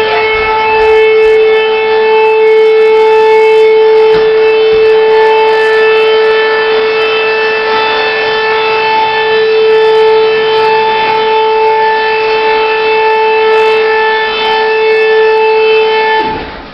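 A platform lift's warning buzzer sounding one loud, steady, unbroken tone for the whole run, cutting off abruptly near the end.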